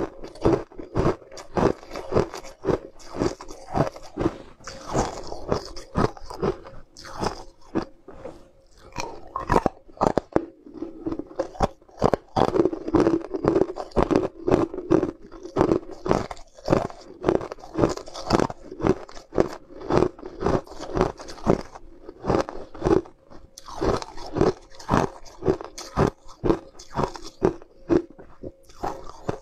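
Close-up crunching of hard sweetened ice being bitten and chewed: a dense run of sharp cracks and crunches, a few each second, with chewing between bites.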